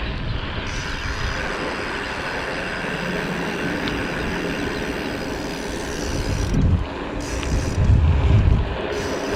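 Steady rushing noise of a bicycle ride, with wind rumbling on the microphone and two stronger gusts near the end.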